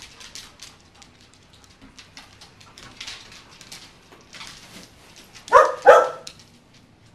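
Dogs play-fighting on a wooden floor, with claws clicking and scuffling throughout; near the end a dog barks twice in quick succession, the loudest sound.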